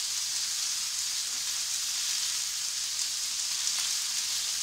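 Quartered cherry tomatoes frying in olive oil in a non-stick pan on full heat: a steady, even sizzle, with a couple of small pops about three seconds in.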